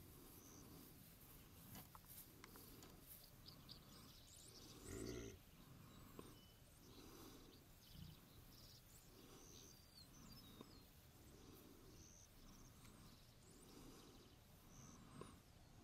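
An American bison grazing, heard faintly: soft rhythmic sounds about once a second, a little louder about five seconds in, with faint bird chirps.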